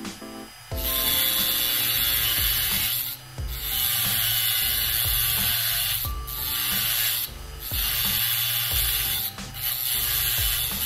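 Abrasive rubbing on a small metal workpiece, a rough scraping hiss in stretches of two to three seconds with brief breaks between strokes.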